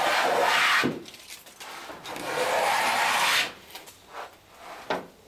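Small hand plane cutting the bevel along the top edge of a wooden clinker plank: two long shaving strokes of about a second each, followed by a few light knocks.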